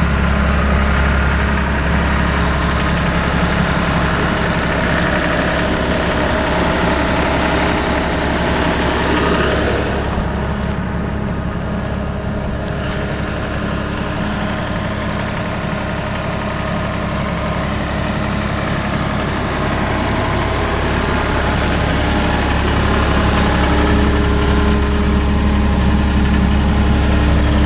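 John Deere 260 skid steer's diesel engine running steadily at idle, easing a little about a third of the way in and growing slightly louder near the end.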